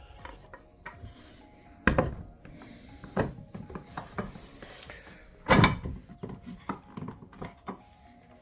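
A shelf knocking and clunking against the wall and screw heads as it is worked over the screws and onto its mounting hole, with two louder thunks about two and five and a half seconds in and lighter taps between.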